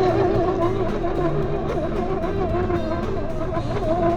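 Background music mixed over the driving sound of an MN Model MN222 1/10-scale RC crawler, with a continuous whine that wavers in pitch as the throttle varies.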